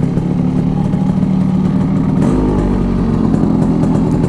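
Yamaha RX two-stroke single-cylinder motorcycle engine running, its note shifting about two seconds in.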